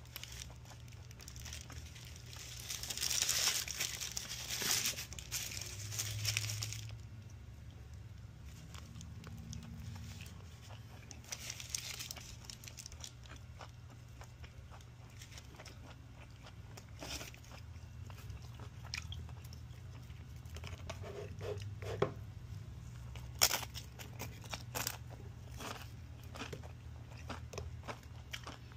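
Someone eating a burrito: chewing, with the paper wrapper crinkling loudly a couple of seconds in and again about halfway through. Several sharp crunches of tortilla chips come in the last third.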